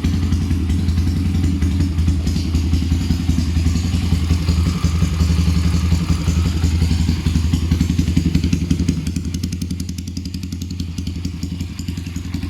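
Pit bike's small single-cylinder engine running steadily, its fast firing pulses heavy in the low end; it settles a little quieter about two-thirds of the way in.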